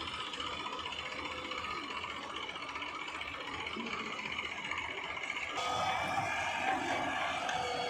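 Diesel engines of a JCB backhoe loader and a Massey Ferguson 7250 DI tractor running steadily. A little over halfway through, the sound turns abruptly louder and brighter.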